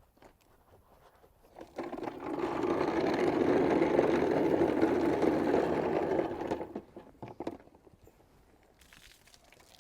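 A small motor-driven tool whirring steadily for about five seconds. It starts about two seconds in and stops a little before the end.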